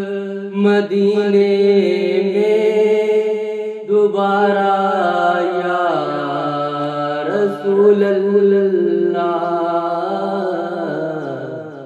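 A man singing a naat, a devotional poem to the Prophet, in long held, ornamented vocal lines over a low steady drone. He breaks briefly about four seconds in and again partway through, and the line fades near the end.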